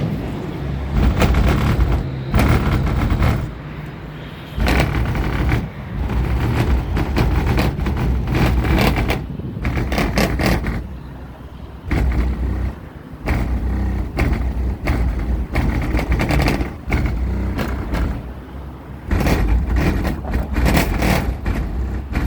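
Two 15-inch Kicker subwoofers in a car playing music loud: heavy, pounding bass with crackling on the hardest hits, dropping back briefly a few times.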